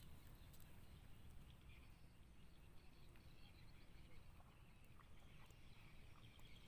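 Near silence: faint outdoor rural ambience with a low rumble and a few soft ticks.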